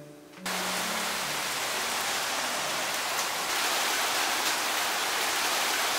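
Steady rain falling on a street, a dense even hiss that starts abruptly about half a second in.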